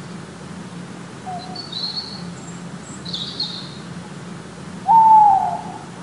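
An owl gives a single hooting call about five seconds in, sliding slightly down in pitch and lasting under a second. Fainter short high-pitched calls come earlier, over a steady low hum.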